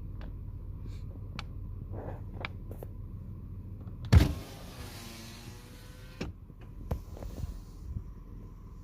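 Low steady rumble of a car with scattered light clicks. About four seconds in there is one loud knock, followed by a rush of noise that fades over a second or two.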